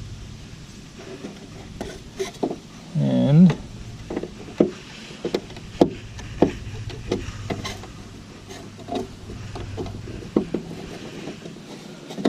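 Irregular light clicks and taps of small metal parts being handled: a bolt, a lock washer and a license plate being fitted by hand.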